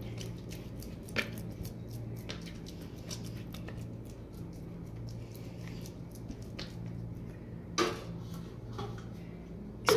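Soft squishing and light pats of hands working oiled dough in a plastic bowl, with a few small clicks and a sharper knock near the end, over a steady low hum.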